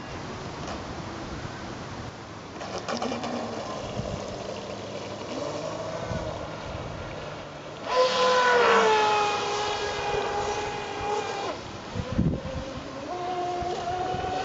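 Piranha 600 RC speedboat's brushless electric motor whining as the boat runs on the water, on an 11.1 V lithium-polymer battery. It is faint at first. A loud whine starts about eight seconds in and sinks slightly in pitch. It eases off, then comes back at a higher pitch near the end.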